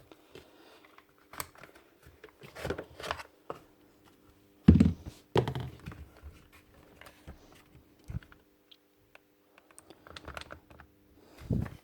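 Clicks, knocks and scrapes of tools and parts being handled while a cordless rotary hammer is taken apart, with two louder knocks about five seconds in and another near the end. A faint steady hum runs underneath.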